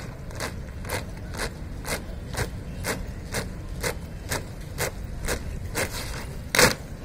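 Marching troops' boots striking the parade ground in unison, about two steps a second, ending with two loud stamps near the end as the squad halts.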